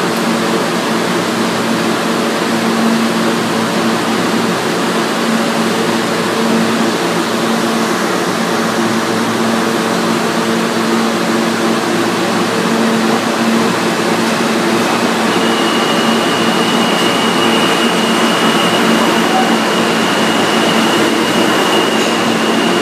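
An R160 subway train arriving at an underground station: a steady rumble with a low hum that grows as the train draws near, joined about two-thirds of the way through by a steady high-pitched whine as the cars run in alongside the platform.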